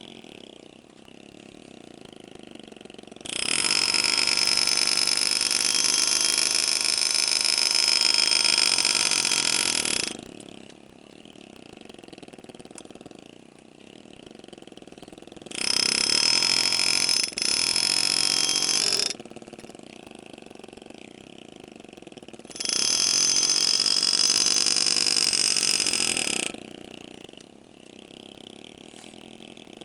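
Power engraving handpiece buzzing in three runs, the first about seven seconds long and the next two shorter, with a faint low hum between runs.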